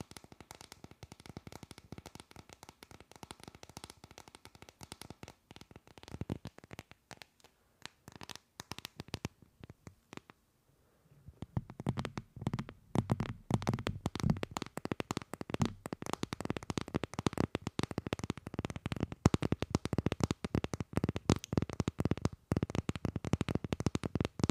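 Long fingernails tapping and scratching quickly on a phone case held right at the microphone: a dense patter of small clicks. It stops briefly about ten seconds in, then comes back louder.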